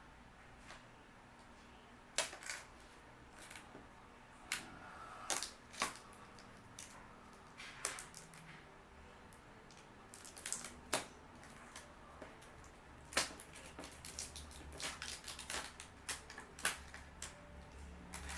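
A cardboard shipping box being opened and handled: irregular sharp clicks, taps and knocks with rustling in between, more frequent toward the end.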